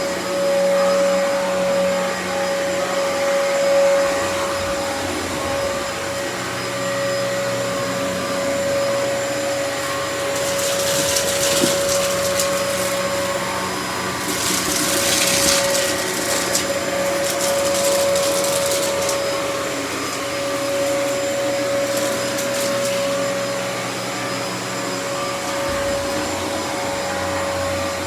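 Dyson DC28 upright vacuum cleaner running steadily with a high motor whine. From about ten seconds in, its rushing air hiss gets louder in several surges, then settles again.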